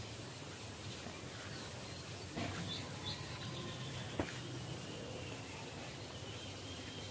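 A knife cutting through a firm green vegetable, with two sharp clicks about two and a half and four seconds in as the blade goes through, and faint bird chirps behind.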